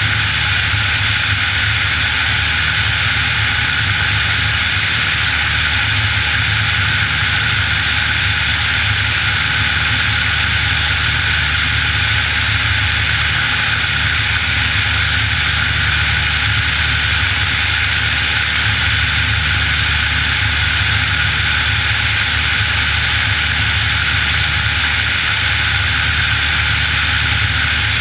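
Piper Warrior's four-cylinder Lycoming engine and propeller running at steady power in flight, a low drone under a heavy, even rush of airflow over the externally mounted microphone.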